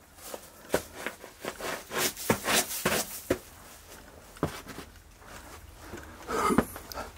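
Footsteps of someone walking through a mine tunnel: a run of irregular steps for the first three seconds or so, then quieter, with a short cluster of louder steps near the end.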